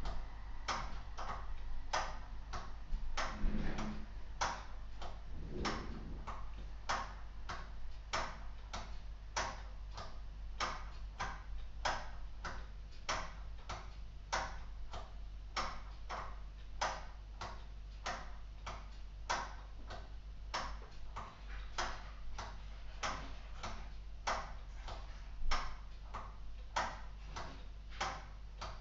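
Escapement of a purely mechanical LEGO Technic cuckoo clock ticking steadily, about two sharp ticks a second, as its wind-up spring motor drives the clockwork.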